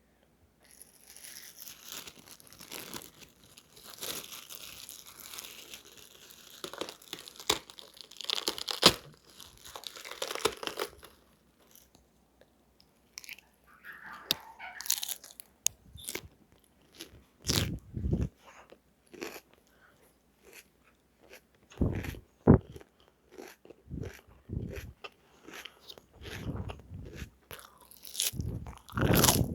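Close-up crunchy chewing and biting: a long run of dense crackling chews, then after a brief pause a series of separate sharp crunches and wet mouth clicks, with several loud heavy bites.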